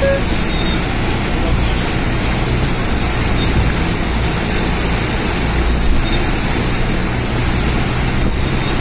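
Steady noise of heavy rain falling on a flooded apron, with a low steady hum underneath.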